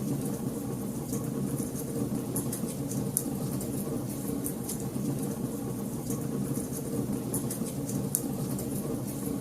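Fireplace fire crackling: frequent sharp, irregular pops over a steady low rumble of the flames.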